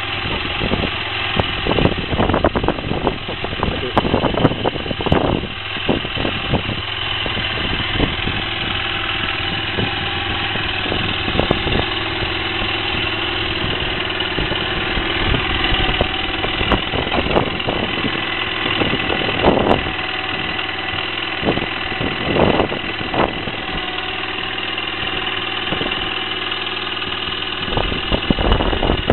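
Kymco 125 motorcycle's single-cylinder four-stroke engine idling steadily, with a few short louder bursts along the way.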